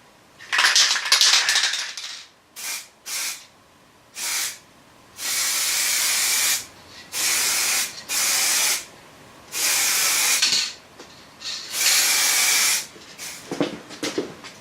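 Aerosol spray paint can spraying wheel-steel paint in repeated hissing bursts, about eight of them, from short puffs to presses of a second or more. A few small clicks and taps come near the end.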